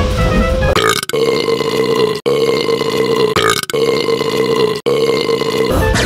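A long burp held at one steady pitch, repeated back to back several times with a short break about every second, laid over cartoon background music. Only the music plays for about the first second.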